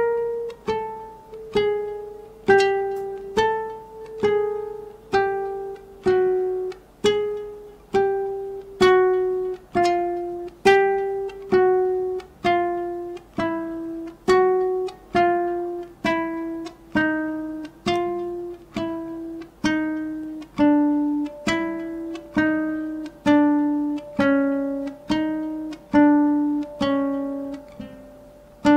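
Classical guitar playing single plucked notes one at a time, about one a second, each ringing out and fading before the next, the line stepping slowly downward in pitch. It is a slow scale exercise running through the notes on the second string.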